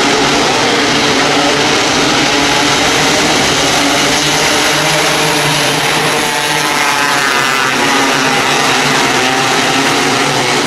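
A pack of winged 270 micro sprint cars racing on a dirt track, their engines running loud and hard together in a steady, dense drone. About six to seven seconds in, one car's note sweeps in pitch as it passes close.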